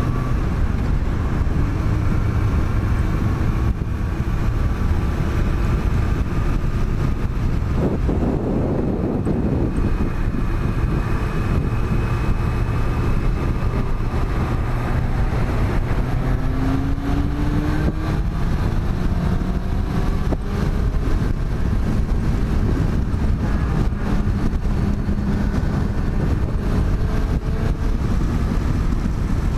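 Motorcycle riding at speed: steady rushing wind noise on the microphone, with the engine's note faintly rising and falling underneath as the bike accelerates onto the motorway.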